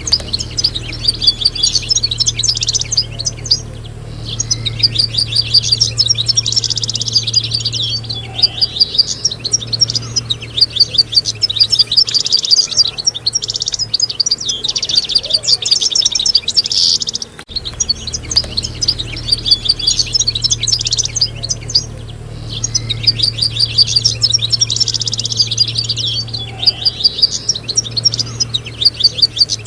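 Several European goldfinches singing together: a dense run of fast twittering notes and tinkling trills. A steady low hum runs underneath, and about halfway through, the same stretch of song starts over.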